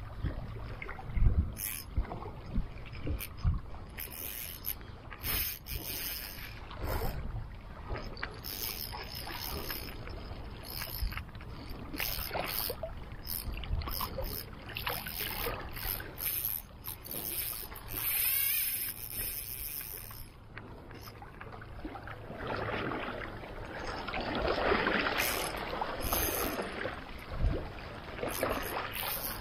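Water sloshing and splashing with wind on the microphone, broken by many irregular clicks and knocks from handling the fishing gear while a hooked fish is played. The rushing noise swells a few times, most strongly in the last third.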